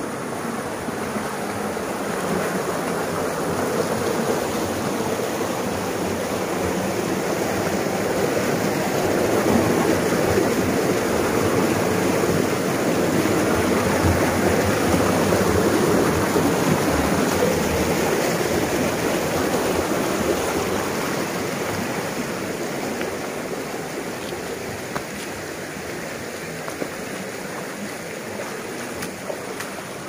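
Shallow rocky mountain stream rushing and splashing over boulders and stones, a steady water noise that grows louder through the middle and eases off near the end.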